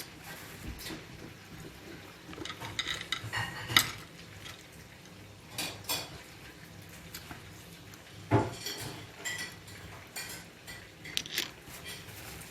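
Cutlery and dishes clinking during a meal: scattered sharp taps and clinks, a cluster about three seconds in and more every couple of seconds after.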